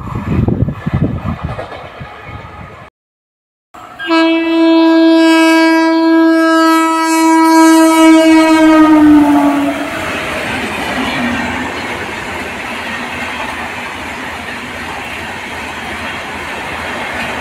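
Indian Railways WAP-7 electric locomotive sounding one long horn blast as it speeds past, its pitch dropping as it goes by. The horn gives way to the steady rolling rumble of the LHB coaches over the rails. Before the horn, a short stretch of rumbling noise cuts off abruptly.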